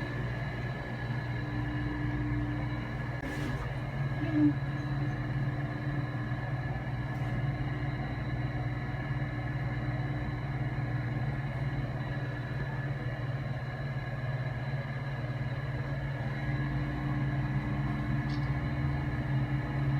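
Steady machine hum inside an enclosed, air-conditioned Ferris wheel gondola, with several constant tones over a low drone, from the cabin's air conditioner and the wheel's running machinery.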